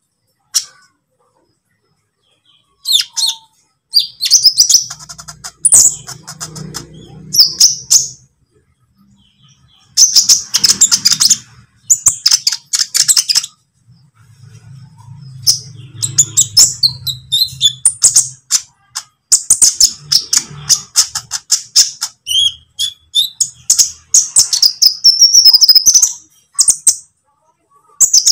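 Olive-backed sunbird (kolibri ninja) singing: repeated bursts of rapid, high twittering and chattering phrases with short pauses between them. After a brief silence near the start, the song comes back about three seconds in and keeps going.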